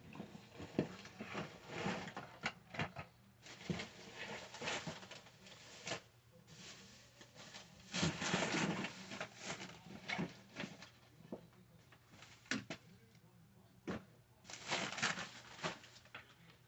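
Rummaging by hand through bedding and pillows: irregular rustling with scattered clicks and knocks, the busiest stretch about halfway through.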